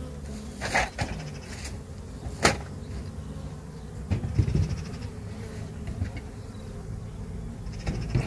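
Honey bees buzzing steadily around open hives, with a few sharp knocks from hive equipment being handled, the loudest about two and a half seconds in and another few around four seconds.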